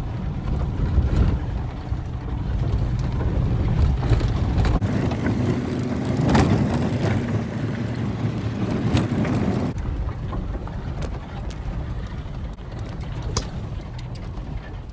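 Vehicle driving slowly over a rough, rocky dirt road, heard from inside the cabin: a steady low rumble of engine and tyres with scattered sharp knocks and rattles from the bumps.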